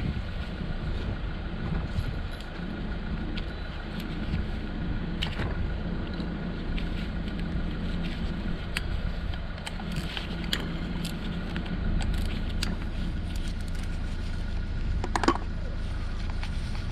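Hand tools and metal parts clicking and clinking while a DENSO starter motor is unbolted and taken apart, with one louder metallic clink and brief ring near the end. A steady low rumble of wind or outdoor background noise sits underneath.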